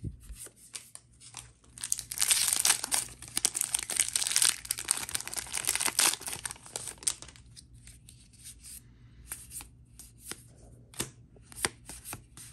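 The shiny foil wrapper of a Magic: The Gathering draft booster pack being torn open and crinkled. It is loudest for about five seconds from two seconds in. Then come scattered short clicks as the cards are pulled out and handled.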